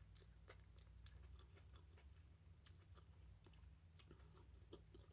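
Faint chewing: a person eating a brisket taco, with irregular small wet mouth clicks scattered throughout.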